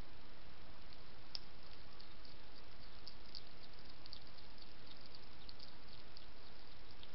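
European hedgehog crunching and chewing dry kitten biscuits: many quick, irregular, faint crackly clicks over a steady hiss.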